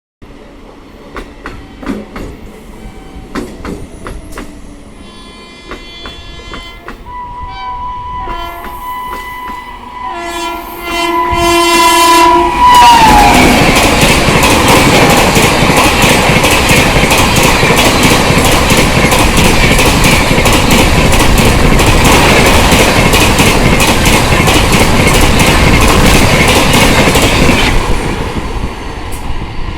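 Indian Railways WAP-7 electric locomotive at speed, sounding its twin-tone horn as it approaches. The horn's pitch drops suddenly as the locomotive passes, about thirteen seconds in. The coaches then go by loud and fast for about fifteen seconds, with a rushing noise and a rhythmic clickety-clack of wheels over rail joints, fading near the end.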